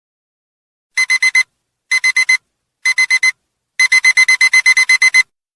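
Digital alarm-clock beeping that signals the countdown timer has reached zero: three bursts of four quick high-pitched beeps about a second apart, then a longer unbroken run of about a dozen beeps.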